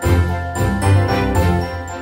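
Background music: a quick succession of pitched notes over a strong bass line.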